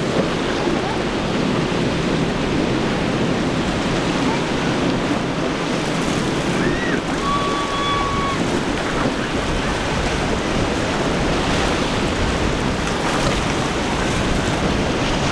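Steady rush of wind on the microphone and breaking surf, mixed with the running of a Mystic center-console's triple Mercury 350 hp outboards and the spray thrown off its hull at speed.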